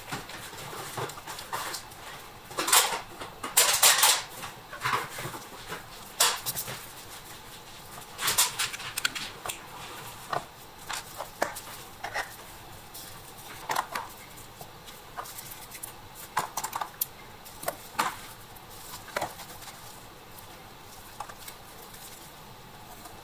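Small model toy truck parts being handled on a workbench cutting mat: irregular light clicks, taps and knocks, loudest about three to four seconds in and again around eight seconds, with scattered fainter ticks afterwards.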